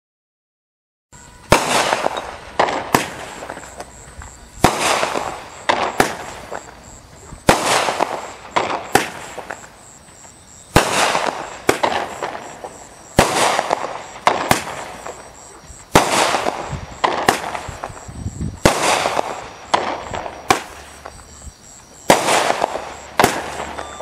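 A 200 g, 9-shot consumer firework cake firing. Sharp bangs start about a second in and come every one to two seconds, each trailing off before the next.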